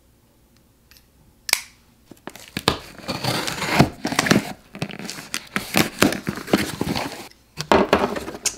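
A folding pocket knife clicks open. Then the packing tape on a cardboard shipping box is slit and torn and the flaps are pulled open, a long run of ripping and crinkling.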